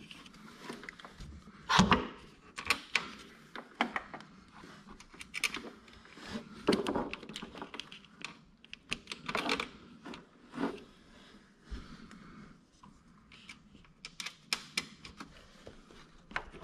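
Hand work on small parts in a tight spot: irregular clicks, taps and light rattles of a screw, wire ring terminals and a tool against metal and plastic, with a sharper knock about two seconds in.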